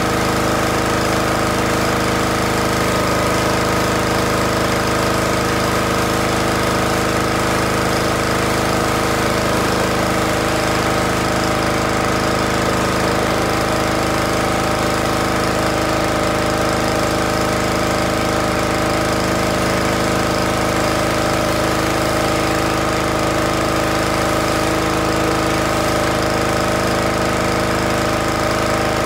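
Honda-engined Craftsman pressure washer running steadily under load, its small engine running at an even pitch while water sprays from the wand.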